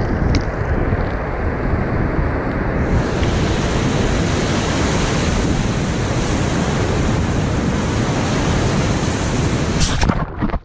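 Steady roar of strong wind buffeting the microphone over ocean surf, with a heavy, fluctuating low rumble; it cuts off abruptly near the end.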